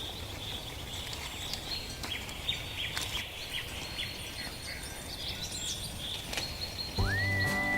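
Small birds chirping over a steady rural background hiss. Near the end a cow starts a long, loud moo.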